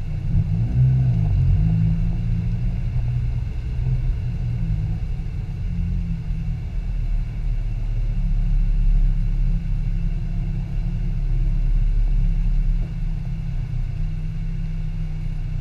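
Car engine heard from inside the cabin at low revs while the car rolls slowly, a steady low rumble with a brief rise in revs about a second in.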